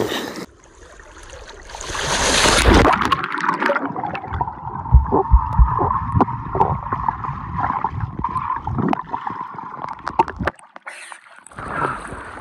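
A loud splash of water about two seconds in, then muffled underwater gurgling and bubbling with low thumps, picked up by a camera held underwater while swimming in a river. The sound cuts out briefly near the end before splashing water returns above the surface.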